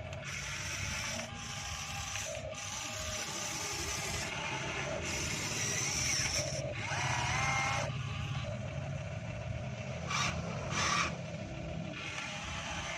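Electric motors of a radio-controlled model Sumitomo S280 excavator whining, starting and stopping in spurts, with a rising whine about seven seconds in.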